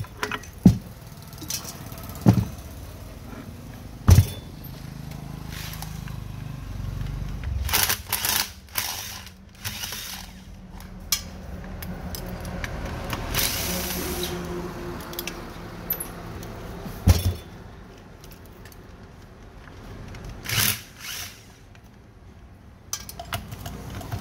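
Hand tools working on a metal water pump: sharp metal knocks and clatter at irregular intervals, with a few longer scraping bursts over a low steady hum.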